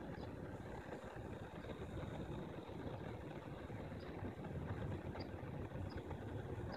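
Steady low outdoor background rumble, with a faint high steady tone and a few faint, short high chirps scattered through it.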